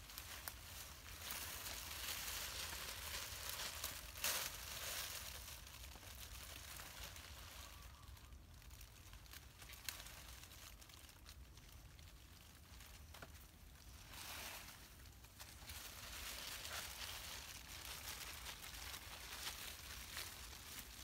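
Leaves and twigs of shrubs rustling as young shoots are picked by hand, in uneven surges, with an occasional sharp click.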